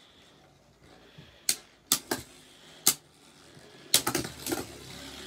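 Two Beyblade Burst spinning tops, one of them Slash Valkyrie, clashing in a plastic stadium: single sharp clacks about a second and a half in, twice around two seconds and again near three seconds, then a quick run of hits around four seconds.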